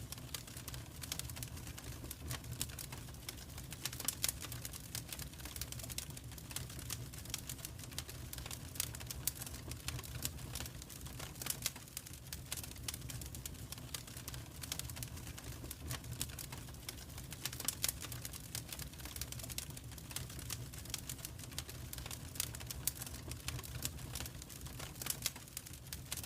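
Fire crackling in a fireplace: a steady run of irregular sharp pops and snaps of varying loudness over a low, steady rumble of the flames.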